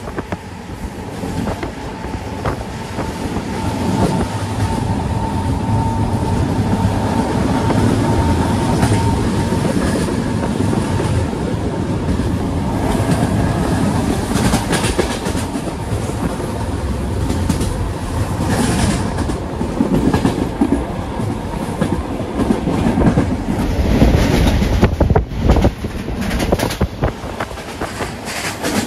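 Passenger train running at speed, heard at an open carriage window: the wheels click over the rail joints over a steady rush of rolling noise and wind. A thin steady whine sits under it for about the first ten seconds, and wind buffets the microphone near the end.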